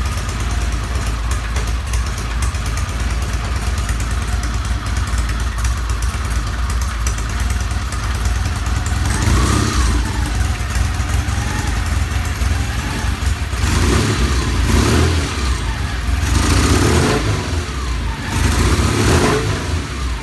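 Vintage British motorcycle engine running, revved up and back down: once about halfway through and three more times near the end.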